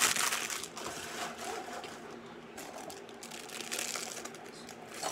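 Small plastic LEGO pieces clattering and scattering as a parts bag is torn open and emptied, with the plastic bag rustling. The loudest burst comes right at the start, then lighter rattling of pieces.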